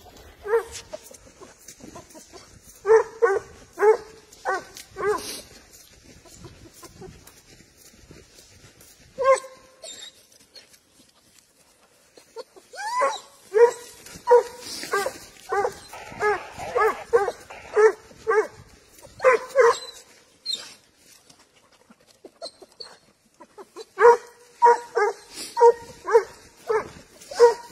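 Spanish hound (sabueso español) giving tongue while tracking a wild boar trail on a lead: runs of short, evenly paced barks, about two a second. A handful come early, a long run fills the middle, and another starts near the end, with quiet pauses between.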